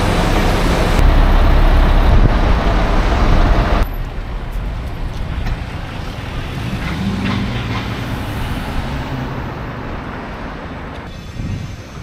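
Concrete mixer truck's diesel engine running loudly close by, a steady low rumble. About four seconds in it gives way abruptly to quieter passing street traffic.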